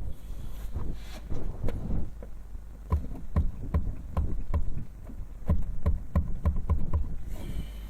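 Lada Priora steering rack knocking as the rack is jerked back and forth by hand: a run of sharp knocks, about two or three a second for most of it. The owner takes it for a worn rack bushing short of grease.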